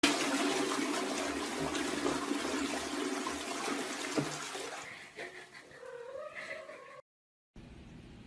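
Toilet flushing, water rushing loudly for about five seconds with a single sharp tap about four seconds in, then fading as a cat gives a long meow that wavers up and down before the sound cuts off.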